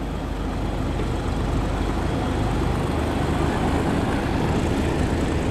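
Passenger speed boat's engine running as the boat pulls out and gets under way: a steady low drone with a haze of water and wind noise, slowly growing louder.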